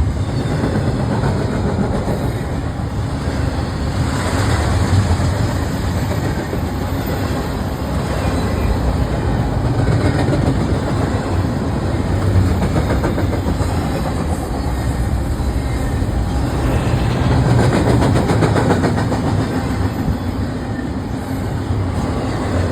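BNSF intermodal freight train passing at speed: a steady heavy rumble of the train rolling by, with wheels clicking over the rail joints in stretches.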